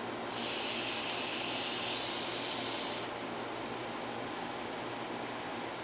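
A breath blown hard onto the air conditioner's humidity sensor, a hiss of about three seconds in two pushes. Under it the room air conditioner runs steadily.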